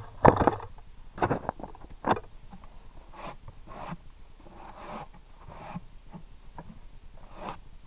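Wooden hive parts being handled: a few sharp knocks and scrapes in the first two seconds, then softer scraping and rustling.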